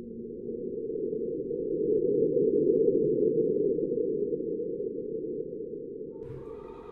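Low, muffled rumbling noise with nothing bright above it, swelling to a peak around the middle and slowly fading. Just before the end a cluster of higher steady electronic tones comes in.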